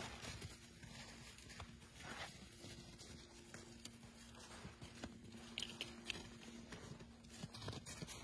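Large dogs moving through snow among fallen branches: scattered soft crunches of paws in snow and small snaps of twigs, with a faint steady hum underneath.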